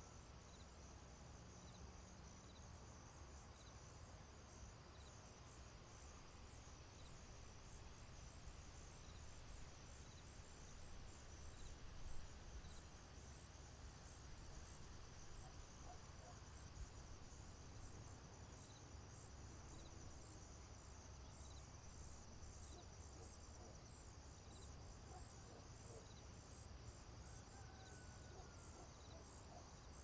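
Faint outdoor nature ambience: a steady chorus of chirping insects with a fast, even pulse, over a low steady rumble. A few short bird calls come in the second half, and there is one brief louder sound about twelve seconds in.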